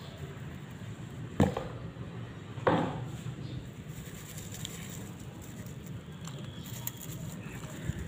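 Close-up handling noise as a hand and phone push into a nest of dry grass: two sharp knocks and rustles, one about a second and a half in and a slightly longer one just under three seconds in, over a steady low background noise.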